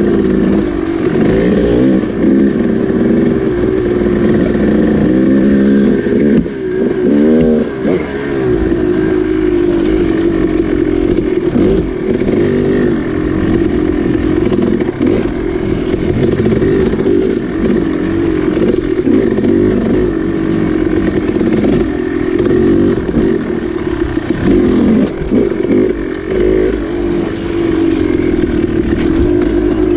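KTM dirt bike engine running as the bike rides along a trail, its revs rising and falling with the throttle.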